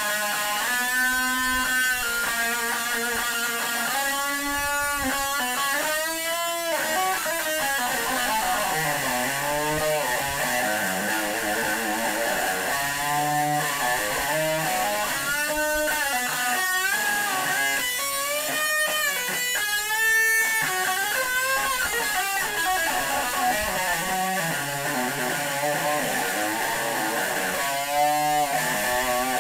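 Electric guitar played continuously: a melodic line of held notes with string bends and vibrato.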